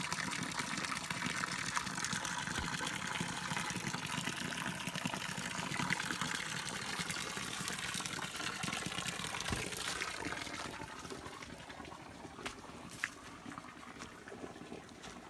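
Small stream trickling over stones and splashing into a shallow pool, a steady rush of water that fades away over the second half. A few light clicks near the end, likely footsteps on dry leaves.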